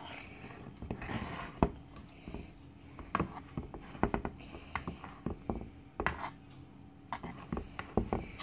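A kitchen knife clicking and scraping as it works cake batter, with scattered light taps. The sharpest click comes about a second and a half in.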